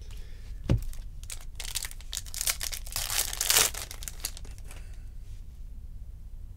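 A soft thump a little under a second in, then a foil trading-card pack wrapper crinkling and tearing as it is ripped open, for about three seconds.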